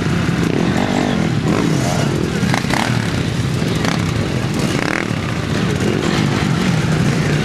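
Several dirt bikes running at low revs as they roll past one after another, their overlapping engine notes wavering up and down with small blips of throttle.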